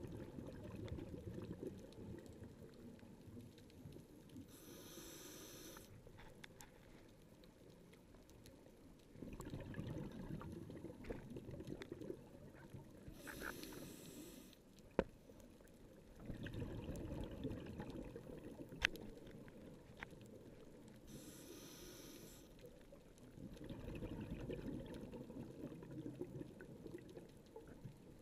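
Scuba diver breathing through a regulator underwater: a short hiss of inhalation about every eight seconds, each followed by a few seconds of low rumbling exhaled bubbles. Two sharp clicks stand out, one near the middle and one later.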